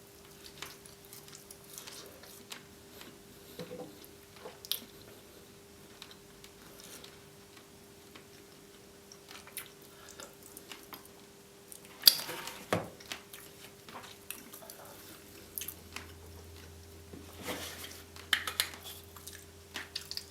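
A person chewing and biting roast chicken, with wet mouth sounds and scattered small clicks over a faint steady hum. There is one sharp knock about twelve seconds in.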